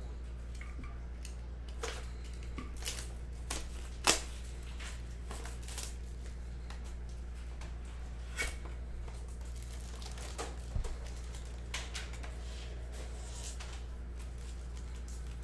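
Cardboard trading-card boxes being torn open and foil card packs handled and stacked: scattered crinkles and sharp rips, the loudest about four seconds in.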